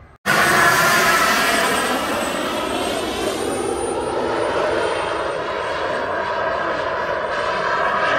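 Radio-controlled model F-18 jet's turbine engine in flight: a loud steady rush with a thin high whine that rises slightly and then falls back about halfway through. It cuts in suddenly a fraction of a second in.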